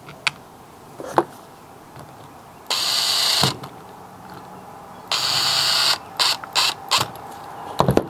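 Cordless power driver driving small screws into the plastic cover of a car door latch assembly: two runs of just under a second each, then four short blips of the trigger. A couple of light clicks of plastic parts being handled come before.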